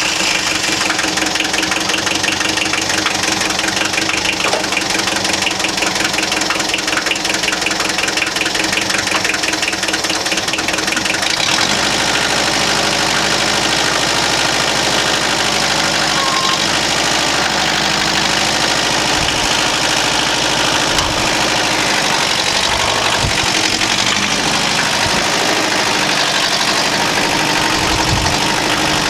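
Tractor engine running steadily with a fast, even clatter at idle. About eleven seconds in the engine note changes and deepens, with a few short knocks later on.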